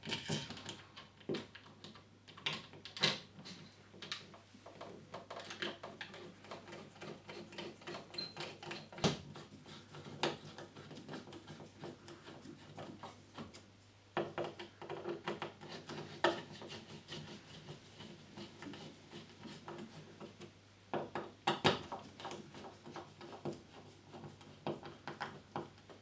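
Hand screwdriver driving the faceplate screws of a plastic double wall socket into its back box: irregular clicking and scraping of the blade in the screw heads, with a few sharper knocks.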